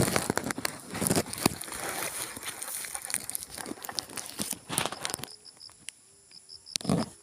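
Rice plants rustling and crackling in irregular bursts as they are handled during harvest, dying down about five seconds in with one more rustle near the end. Insects chirp steadily behind.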